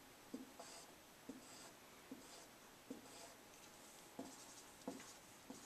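Faint dry-erase marker on a whiteboard: four short strokes, about one a second, each starting with a light tap of the tip, then three quick taps as dots are marked near the end.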